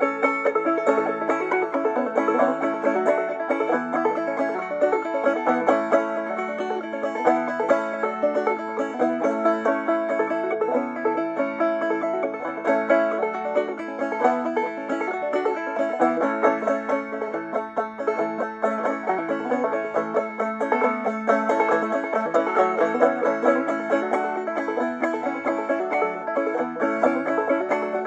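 Five-string banjo played clawhammer style, a lively old-time fiddle tune picked in a quick, even rhythm over a steady drone note.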